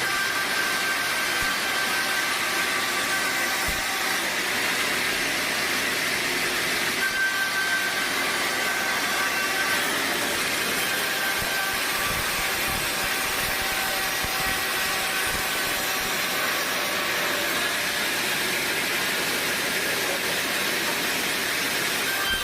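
Sawmill machinery running steadily: an even mechanical hiss with a faint high whine, without clear cutting strokes.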